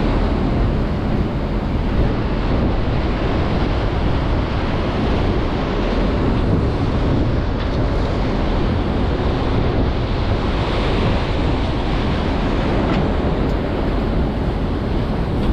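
Steady wind rumbling on the microphone, with the low drone of a boat engine and the wash of water underneath.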